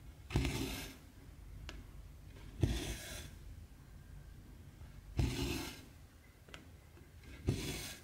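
Cotton embroidery thread pulled through 14-count cross stitch fabric: four pulls of about half a second each, roughly two and a half seconds apart. Two short, sharp ticks fall between them.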